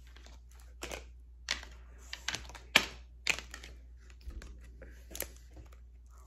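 Tarot cards being handled and laid down on a table: a string of irregular sharp snaps and taps.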